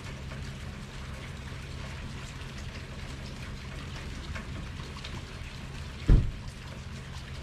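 Steady rain falling, with faint scattered drop ticks over a low steady hum, and a single low thump about six seconds in.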